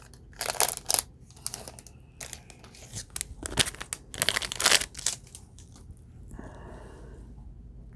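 Trading card pack wrapper being torn open and crinkled by hand, in several quick rips and rustles.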